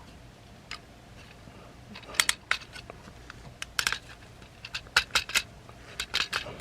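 Hard plastic parts of a transforming robot action figure clicking and snapping as they are rotated and pegged together by hand, in several short clusters of sharp clicks.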